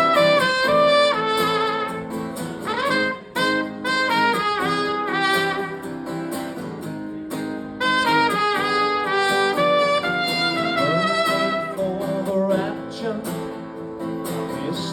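Live trumpet playing a quick melody over strummed guitar: an instrumental intro with no singing yet.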